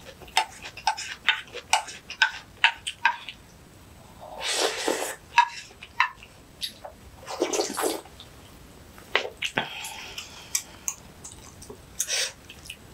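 A woman slurping seaweed soup (miyeokguk) off a spoon: three long slurps, the first about four seconds in, with short wet mouth smacks and chewing clicks between them.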